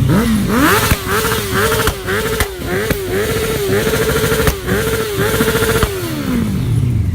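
An engine revved up sharply and held at high revs for about five seconds, its pitch wavering slightly. It then drops back down to idle near the end.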